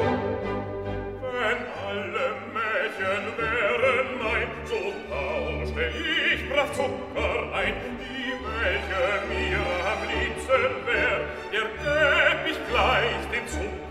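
Operatic singing with orchestral accompaniment, the voice wavering in pitch with vibrato over a sustained low backing.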